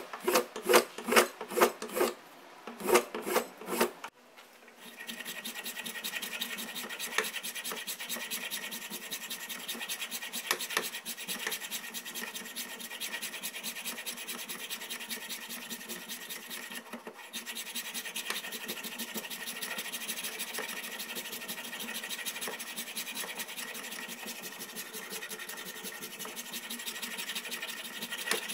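Hand filing on the axe: quick, even rasping strokes, about two to three a second, for the first four seconds. After a short break comes a steady, unbroken abrasive scratching with a faint thin whine in it, which carries on at a constant level to the end.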